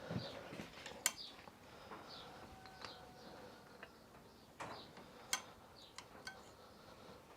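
Small metal parts clinking as nuts and washers go onto exhaust manifold studs: scattered sharp clinks, a few with a brief metallic ring, the loudest about a second in and near five and a half seconds. Faint bird chirps in the background.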